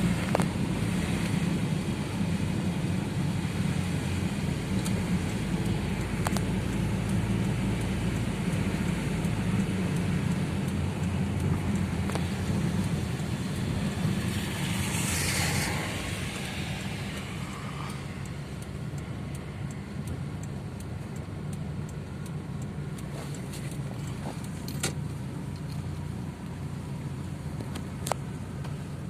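Steady motor-vehicle running noise with a low hum, and a brief rushing noise about halfway through.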